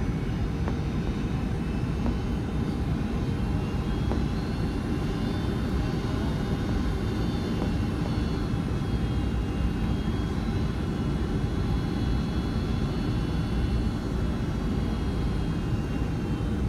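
Cabin noise of a Boeing 757-200 on final approach, heard from a window seat over the wing: a steady low rush of engine and airflow noise, with faint steady high-pitched tones above it.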